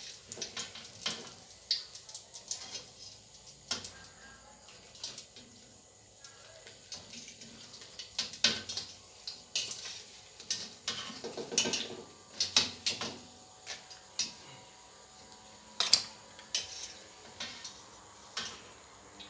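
Metal spatula clinking and scraping irregularly against a steel wok as deep-fried wontons are stirred and lifted out of hot oil, over a soft sizzle of frying. The clinks come thickest and loudest in the second half.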